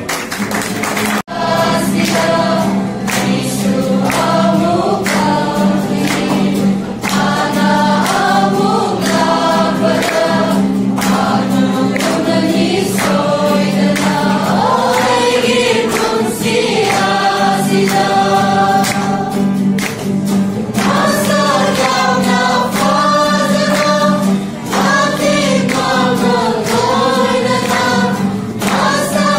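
A small group of mostly female voices singing a Christmas song together to an acoustic guitar. The sound briefly cuts out about a second in.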